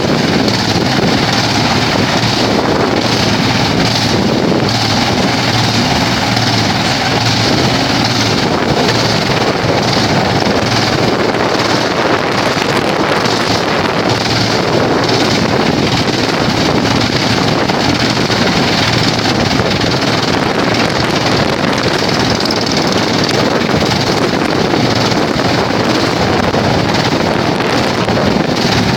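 Vantec PTF600x300/450mm forestry wood chipper running with a loud, steady noise.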